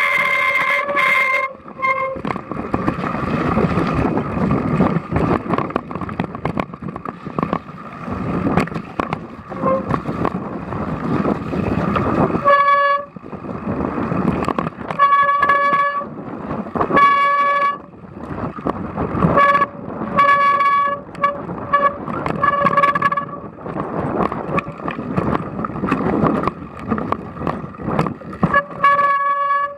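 Wet bicycle brakes squealing in repeated short bursts as they are applied, over the crunch and rattle of tyres on a stony trail.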